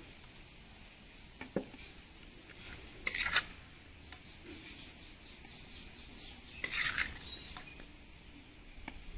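Steel spoon scraping and clinking against a stainless-steel pot while scooping jackfruit pickle, in two short bursts about three and seven seconds in, with a small click before them.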